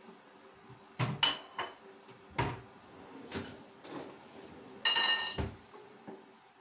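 Kitchen dish and cutlery handling: a plate set down on a stone countertop, cupboard and drawer knocks, and cutlery clinking in a plastic drawer organiser. The loudest clatter, with a metallic ring, comes about five seconds in. A faint steady hum runs underneath.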